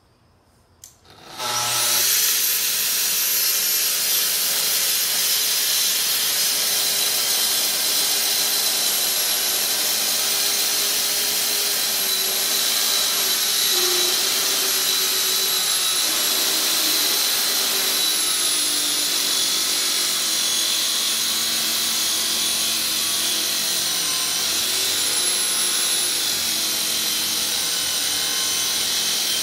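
A plunge-cut track saw starts up about a second in and then cuts steadily along its guide rail through a thick wooden slab, its motor holding a high whine, with a dust extractor running at the cut.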